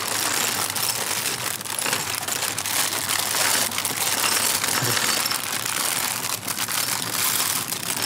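Several small plastic parts bags of building bricks being opened and crinkled by hands at once, with a steady rustle broken by many short clicks of plastic bricks on the tabletop.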